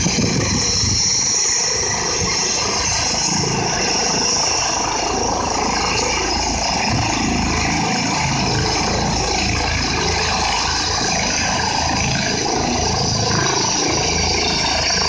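Medical helicopter running on the ground with its rotor turning, waiting to take off: a steady turbine engine whine over rotor noise.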